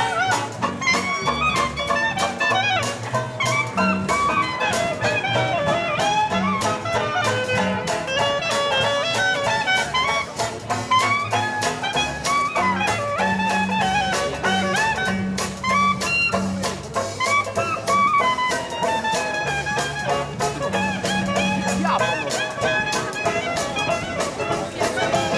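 Small street jazz band playing an upbeat tune: a trumpet carries the melody over banjo, plucked double bass and a drum kit keeping a steady, even beat.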